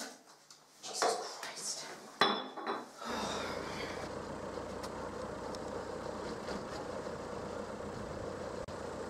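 A few knocks and a sharp glass clink as bottles are handled at a bathroom sink, then, from about three seconds in, steady outdoor street traffic noise.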